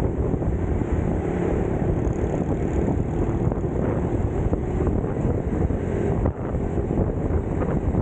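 Wind buffeting the microphone: a loud, steady low rumble with no break.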